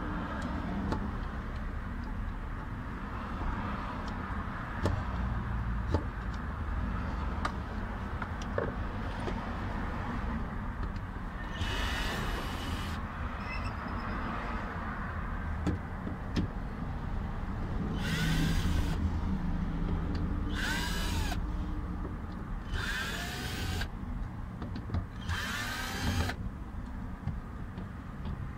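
A power drill with a socket runs in about five short bursts of roughly a second each, spinning out the bolts of a fuel pump access cover; each burst has a whine that rises and falls. Before the drill runs there are light clicks and scrapes of hand tools over a steady low hum.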